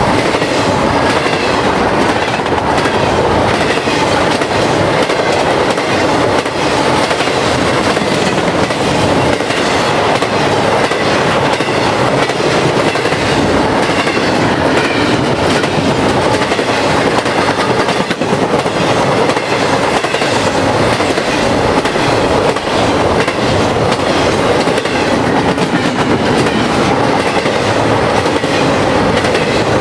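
Freight train's open-top hopper cars rolling steadily past close by: a continuous rumble of steel wheels on rail with a rapid clickety-clack as the wheels cross rail joints.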